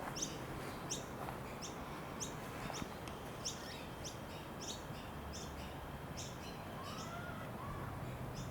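A small bird chirping over and over, short high chirps at a little more than one a second, over a steady background hiss. Two fainter, lower whistled notes come near the end.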